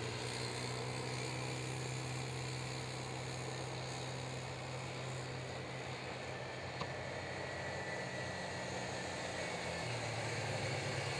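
Youth ATV engines running steadily as the quads lap the track: a continuous droning hum that drops in pitch about nine seconds in.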